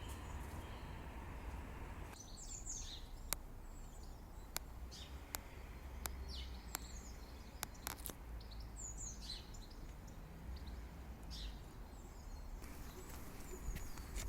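Birds chirping in short, quick clusters of calls, over a low outdoor rumble with a few sharp clicks scattered between the calls.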